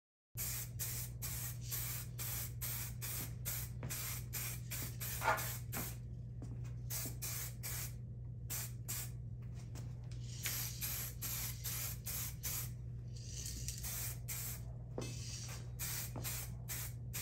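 2K clear coat aerosol spray can hissing in many quick short bursts, over a steady low hum.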